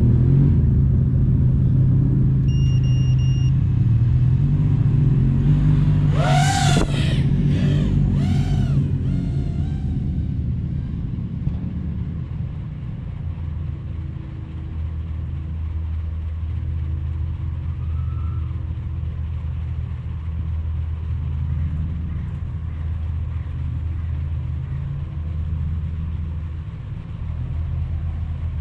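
Snowmobile engines running with a steady low hum. About six seconds in, a short high whine rises and falls a few times as a machine passes close.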